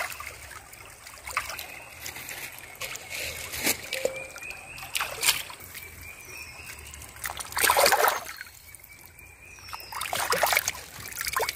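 Hands washing pieces of jungle fowl meat in a shallow stream: irregular splashes and trickling as the meat is dipped and rubbed in the water, the biggest splash about eight seconds in.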